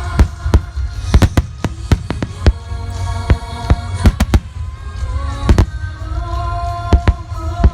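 Aerial firework shells bursting in a rapid barrage of about twenty sharp bangs, several a second at times, over a constant low rumble. Music plays underneath the bangs.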